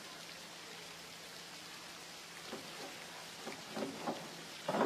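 Quiet diving-pool hall ambience: a steady hiss with a few faint distant voices in the second half, and a louder sound starting just before the end.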